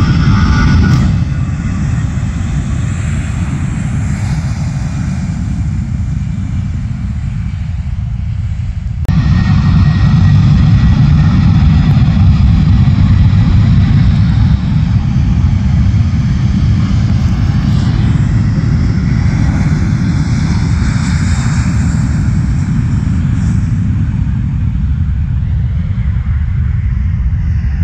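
Jet engines of Airbus airliners (an easyJet A319, then a Wizz Air A321) rumbling as the aircraft move along the runway, a loud, deep, steady roar. The sound changes abruptly at cuts about a second in and again about nine seconds in, where it gets louder.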